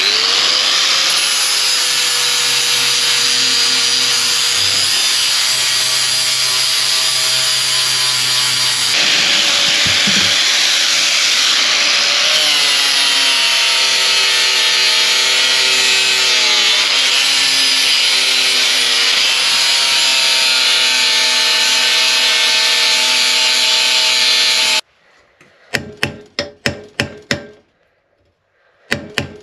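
Angle grinder running against a rusty steel bar, a loud steady whine that dips briefly in pitch as the disc is loaded. It cuts off suddenly near the end, and quick runs of hammer blows on a steel punch follow.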